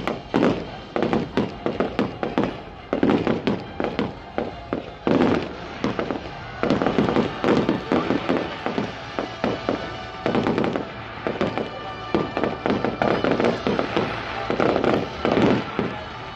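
Aerial fireworks going off in a rapid, irregular string of bangs and crackles, several a second, with music playing underneath.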